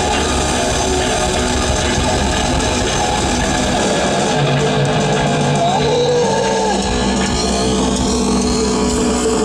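Death metal/grindcore band playing live, with electric guitars loud and dense throughout.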